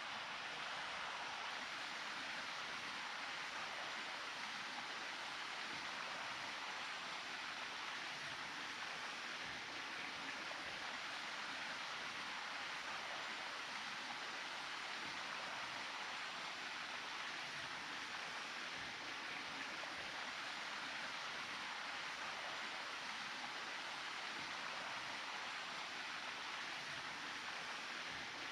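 Steady rush of flowing water from a stream or river, an even hiss with no rhythm or breaks.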